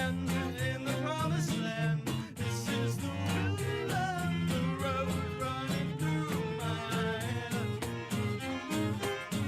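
A band playing a song live, with singing over a steady beat.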